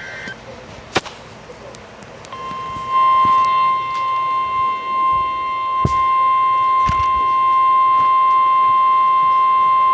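NOAA Weather Radio's 1050 Hz warning alarm tone: a loud, steady single-pitched alarm that comes on about two seconds in and holds, signalling that a warning message is about to be broadcast. A few sharp clicks sound over it.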